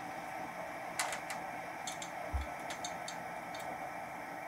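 Metal lathe running with its chuck spinning while a drill fed from the tailstock cuts into a steel workpiece: a steady machine hum with irregular light ticks and one dull low thump about halfway through.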